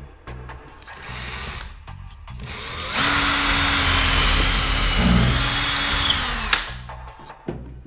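Power drill pre-drilling a pilot hole into the wall for a TV mount: the motor runs steadily for about three and a half seconds, starting about three seconds in, then stops.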